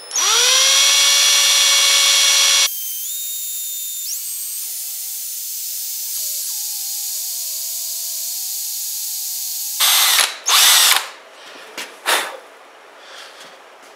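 Power drill running a very small bit into a headless tamper-proof screw on a GY6 scooter carburetor, drilling a pilot hole slowly. It starts with a loud whine that drops to a quieter, steady high whine about three seconds in while the bit cuts. The drilling ends about ten seconds in with a short burst of louder noise, then a couple of handling knocks.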